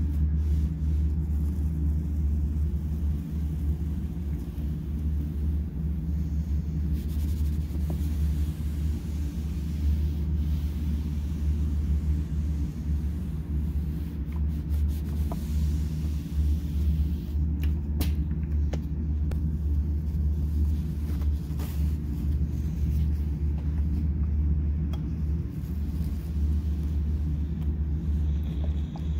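A steady low hum, with a few faint clicks in the second half.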